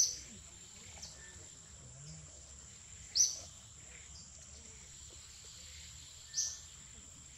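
Forest ambience: a steady high-pitched insect drone, with a short sharp high call cutting in three times, about every three seconds.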